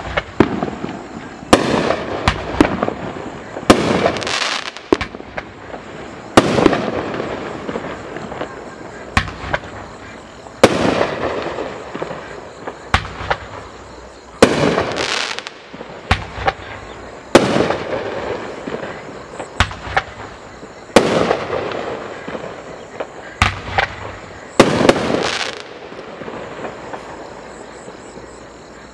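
Nine-shot consumer fireworks cake firing its shots in sequence: a string of loud bangs one to four seconds apart, each trailing off over a second or two, with the last one about three seconds before the end.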